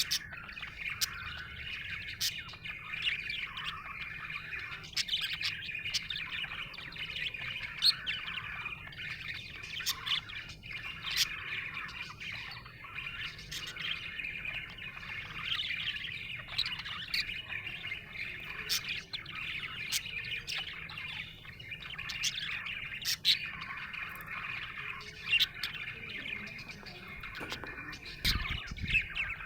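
Budgerigar chirping and warbling happily in a continuous busy chatter, with sharp high chirps every second or two.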